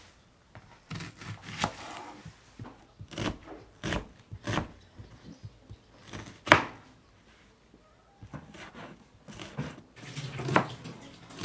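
Kitchen knife slicing and chopping onions on a wooden cutting board: irregular knocks of the blade striking the board, with one much louder chop about halfway through.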